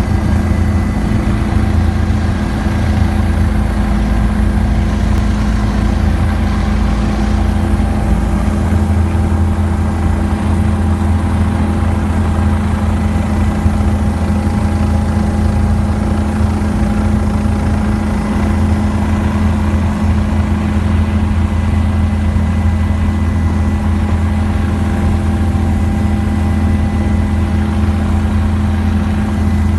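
Helicopter in flight: a steady, unchanging engine and rotor drone with thin whining tones above it.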